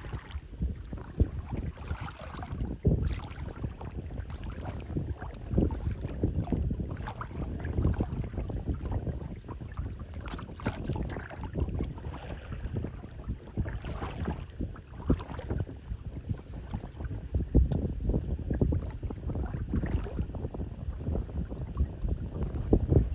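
Wind buffeting the microphone aboard a moving boat, with a steady rush of water noise beneath it.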